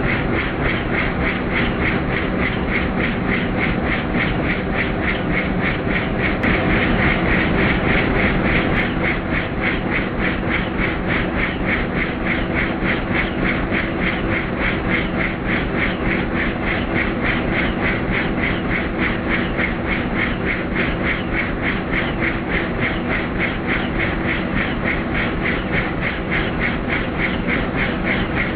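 Helicopter in flight: the rotor blades beat in a rapid, even pulse over a steady engine hum, holding constant throughout.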